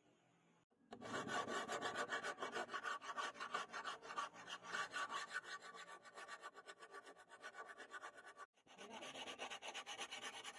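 Hand file scraping back and forth along the steel edge of a hand-forged katana blade in quick repeated strokes, starting about a second in, with a brief break about two seconds before the end.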